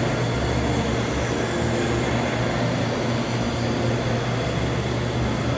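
Steady background ambience of a large station concourse: a constant low hum, such as ventilation, under an even wash of noise, with no distinct events.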